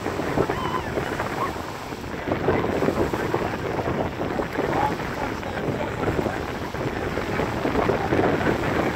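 Wind rumbling on the microphone, mixed with small waves lapping and splashing in the shallows around a large inflatable paddle board.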